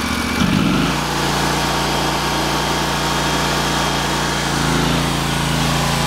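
Ditch Witch trencher's small gasoline engine throttled up from idle about half a second in, its pitch rising, then running steadily at higher speed. Its note shifts slightly about four and a half seconds in.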